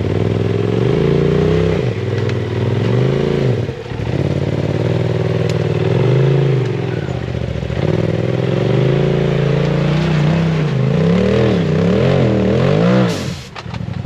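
Polaris RZR Turbo S side-by-side's engine revving up and down in repeated throttle blips as it works up a rocky climb, with a brief let-off about four seconds in and the revs falling away near the end.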